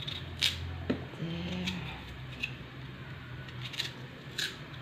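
A knife peeling a raw potato by hand: a handful of short, sharp scraping cuts as the blade takes off the skin, over a low steady hum.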